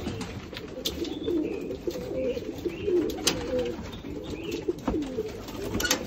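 A flock of Iraqi-breed domestic pigeons cooing over one another, a continuous wavering chorus of low coos, with a few sharp clicks here and there.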